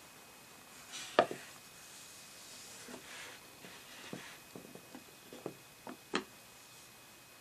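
Tajine pot with a glass dome lid being set down on a wooden trivet: a sharp knock about a second in, then several lighter knocks and clinks, and another sharp one near the end.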